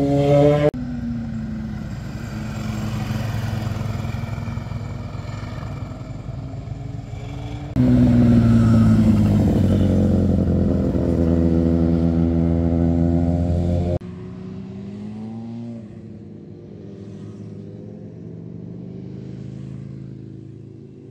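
Motorcycle engines accelerating out of a hairpin bend, one bike after another. A high revving note cuts off early, followed by a more distant bike. About eight seconds in comes a loud close pass, the engine note sweeping down and then climbing again as the bike pulls away. The sound fades out near the end.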